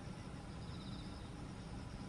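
Outdoor ambience: a steady low rumble under a faint, steady high insect buzz, with a brief faint trill about a second in.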